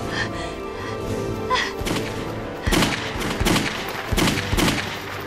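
Rifle shots from a film gunfight, a run of about six sharp shots in the second half, over a background music score of held tones.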